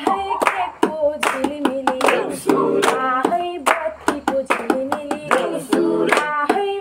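A small group singing a Deusi festival song together while clapping their hands in a steady rhythm, a sharp clap every fraction of a second.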